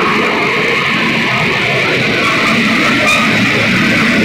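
Background music led by guitar, at a steady level throughout.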